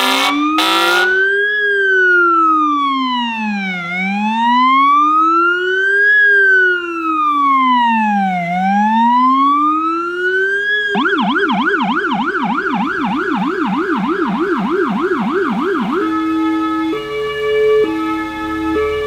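Scania fire engine's siren cycling through its modes: a steady horn blast that stops about a second in, then a slow rising-and-falling wail, switching about eleven seconds in to a fast yelp of about four sweeps a second, then about sixteen seconds in to a two-tone hi-lo.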